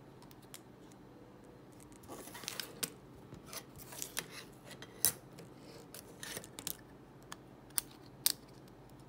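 Printed circuit-board panels handled and set down on a cutting mat: a string of light clicks, taps and scrapes starting about two seconds in, with the sharpest clicks near the middle and near the end.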